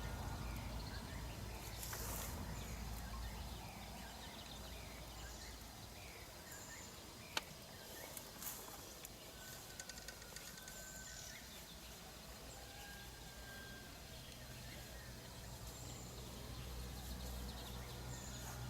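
Faint outdoor ambience with scattered short bird chirps, a single sharp click about seven seconds in, and a low wind-like rumble at the start and again near the end.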